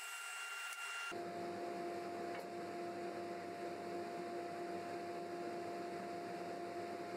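Faint steady mechanical hum with a hiss. About a second in it changes abruptly from a thin high whine to a lower, fuller hum, which then holds steady.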